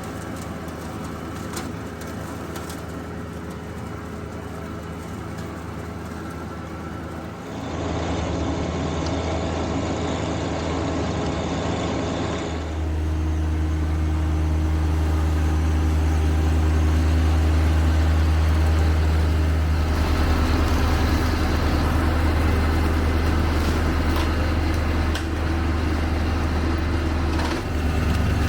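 John Deere 1025R compact tractor's three-cylinder diesel engine running steadily under work. The sound steps abruptly louder and changes tone about 7 s and 12 s in.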